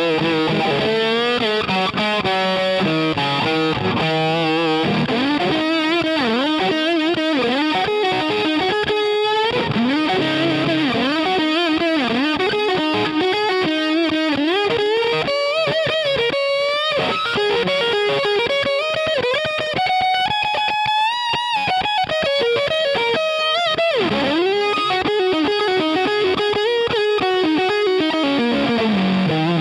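Distorted electric guitar playing a lead solo in E, starting low on the neck and climbing higher, with string bends, fast runs and wide vibrato on held notes. It ends with a whammy-bar dive bomb, the pitch sliding steeply down.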